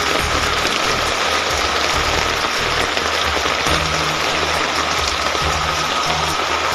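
Heavy hail pelting down onto the ground, a dense steady hiss, with background music whose low bass notes change every half second or so.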